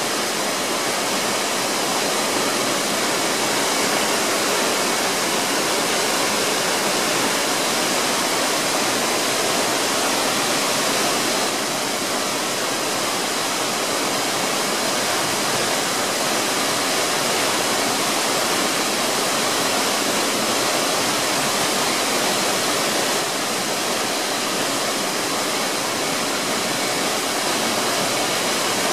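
Omanawa Falls, a waterfall plunging into its pool: a steady rush of falling water.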